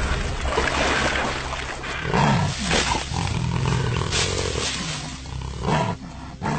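Jaguar roaring, several calls in a row.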